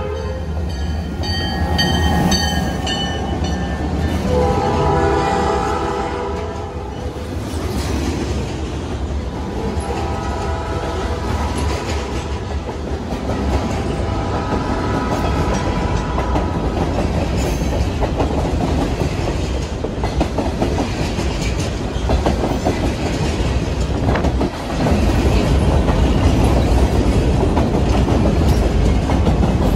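Freight train's locomotive horn blowing in long blasts for the first several seconds as the train approaches. Then the steady rumble and clickety-clack of boxcars rolling past close by, growing louder near the end.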